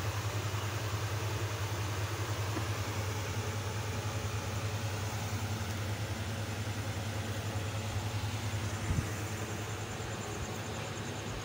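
A steady low mechanical hum with an even hiss over it, and a short knock about nine seconds in.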